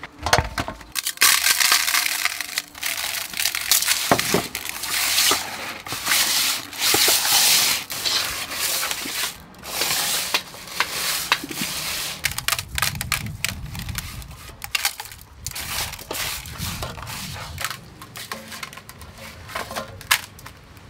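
Hands scrubbing a snakehead fish with salt in an aluminium bowl: gritty scraping and rubbing against the metal in uneven strokes, louder in the first half. Salt scrubbing like this strips the slime from the skin.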